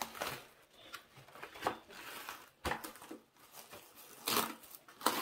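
Plastic cling film crinkling and crackling in irregular bursts as it is stretched and pressed down over a bowl.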